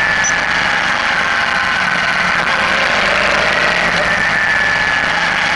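Suzuki V-Strom motorcycle under way on the road, its engine running steadily beneath a constant rush of wind on the bike-mounted camera. A thin high whine runs through it, drifting slightly in pitch.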